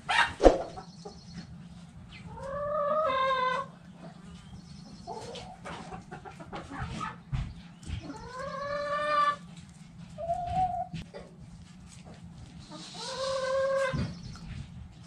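Chickens calling: three drawn-out, pitched calls about five seconds apart, each lasting around a second, with a short call between the second and third. A sharp click comes right at the start.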